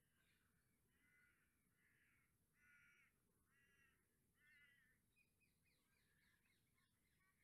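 Very faint crow cawing: about five caws roughly a second apart, then a quicker run of short chattering bird notes.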